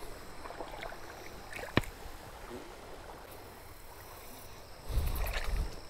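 Faint river water moving and lapping at the bank, with one sharp click about two seconds in and a brief low rumble near the end.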